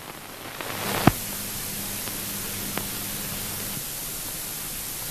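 Hiss and static from an old film soundtrack with no speech on it, swelling about a second in, with a sharp pop at that point and a fainter click near three seconds. A low hum runs from about one second in until near four seconds.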